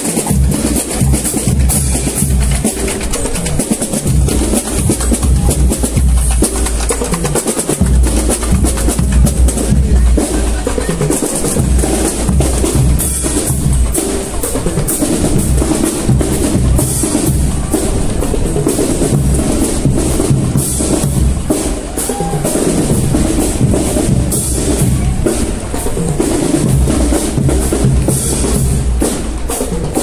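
Marching band (banda marcial) playing, led by bass drums and snare drums beating out a steady march.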